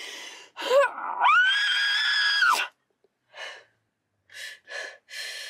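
A woman crying hard: a gasping breath, then one long high-pitched wail held for about a second and a half, then short gasping sobs.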